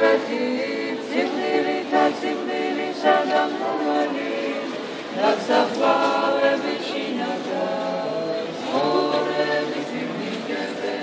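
An a cappella choir singing Orthodox church chant in a stone church: several voices hold long notes together in harmony, in phrases that swell and break off every second or two.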